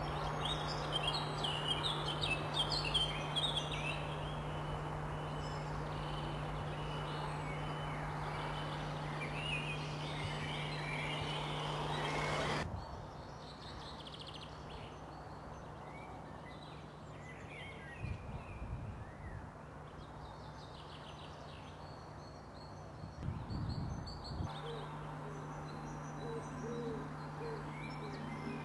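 Birds singing and chirping over a steady noisy background with a low hum. Partway through, the hum and noise cut off abruptly, leaving quieter birdsong with a couple of brief low rumbles, and the hum comes back near the end.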